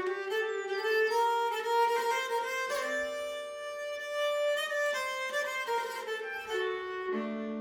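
Background music led by a bowed violin playing sustained notes over held lower string tones.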